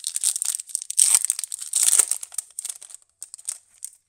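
Plastic wrapper of an Upper Deck MVP hockey card pack crinkling as it is torn open and handled: a dense crackling, loudest in the middle, thinning to a few separate crinkles near the end.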